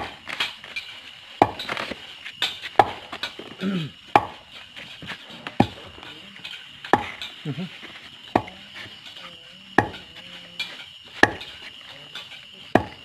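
Long pestle pounding rice in a bucket to make pinipig: a heavy thud about every one and a half seconds, with lighter knocks and rustling of the grain between strokes.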